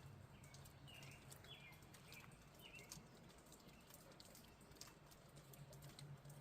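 Faint water dripping from cave rock, heard as scattered small drips, with a bird giving four short chirps in the first three seconds.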